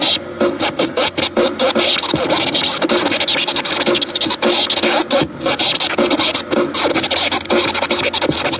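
Vinyl scratching on portable turntables: a record sample cut and scratched back and forth in fast, choppy strokes.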